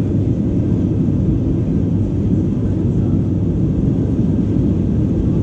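Airbus A320 cabin noise during the climb after take-off: the engines and rushing air make a steady, heavy low rumble that does not change.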